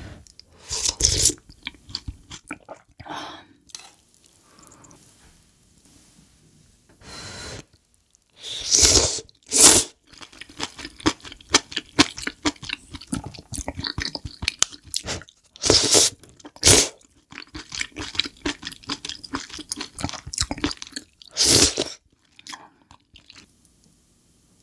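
A person eating close to the microphone: steady chewing and wet mouth clicks, broken about six times by louder slurps of spicy stew broth and noodles.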